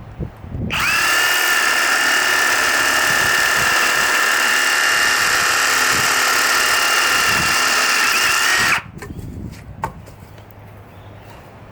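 Ozito PXC 18V brushless reciprocating saw running at steady full speed with a high motor whine for about eight seconds, starting shortly after the beginning and stopping abruptly.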